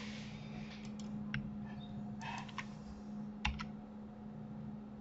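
Scattered clicks of a computer keyboard and mouse, a few separate keypresses and clicks with gaps between them, over a low steady hum.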